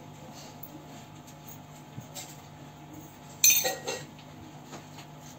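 A spoon clinking against a stainless steel bowl while turmeric powder is spooned in: a few light taps, then one sharp metallic clink with a short ring about three and a half seconds in.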